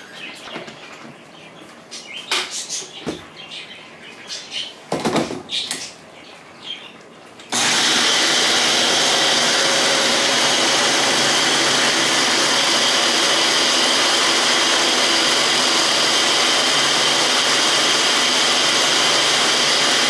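A few light clicks and knocks, then about seven seconds in a countertop blender starts abruptly and runs steadily at one speed, blending soaked oats with water and sugar for agua de avena.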